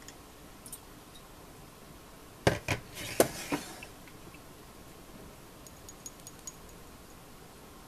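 Glass knocks and clinks from handling a bottle and a glass of liquor on a large ice ball: four sharp knocks about two and a half to three and a half seconds in, with a short hiss among them, then a few faint ticks near the end.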